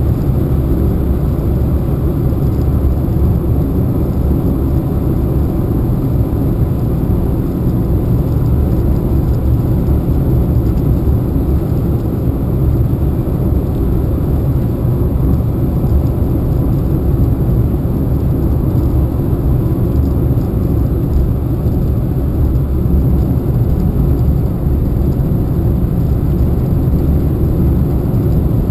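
A car driving at a steady cruising speed on a sealed road, heard from inside the cabin: an even, low rumble of tyre and engine noise that does not change.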